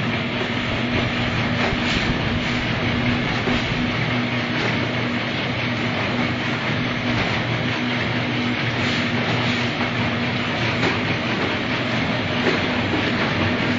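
Packaging machine for wrapping bars running continuously: a steady motor hum under ongoing mechanical clatter, with scattered sharper clicks.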